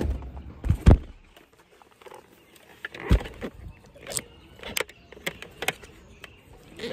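Knocks and clicks as a motorcycle helmet is handled close to a phone's microphone, with heavy bumps on the microphone in the first second and about half a dozen sharp clicks later on.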